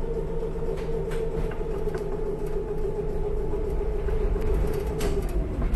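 Pacific Electric Hollywood Car streetcar running along the track: a steady whine over a low rumble, with a few sharp clicks, two of them close together about five seconds in.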